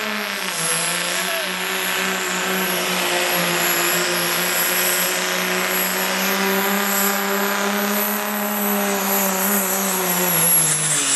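Dodge Ram's Cummins inline-six turbodiesel held at high, steady revs under full load while pulling a weight-transfer sled, with a high turbo whistle over it. Near the end the revs sag, then the engine note cuts off.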